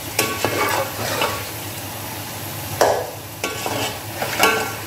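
Fish curry masala sizzling as it fries down in a metal pot, with a metal slotted spoon stirring and scraping through it in several short strokes, the loudest about three seconds in and near the end.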